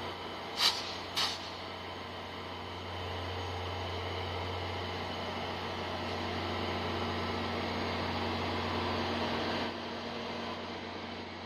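Two General Motors 3000 hp diesel-electric passenger locomotives idling at a standstill: a steady, low engine hum that grows somewhat louder about three seconds in and drops back about ten seconds in. Two short, sharp clatters about half a second apart just after the start.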